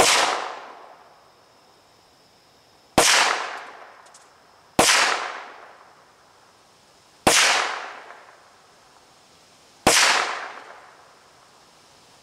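Ruger Mark III .22 LR pistol firing five shots, irregularly spaced two to three seconds apart, each sharp crack followed by a fading echo.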